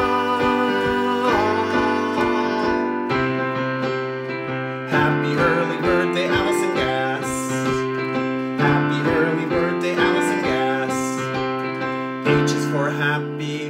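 Electric keyboard playing a piano-voiced chordal accompaniment with changing chords, and a man's singing voice over it in places.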